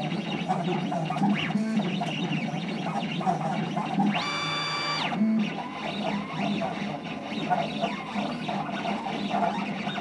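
Stepper motors of a DIY CNC machine whining in short rising-and-falling tones as it drag-engraves acrylic with a needle, with a longer, higher whine about four seconds in during a faster move across the sheet.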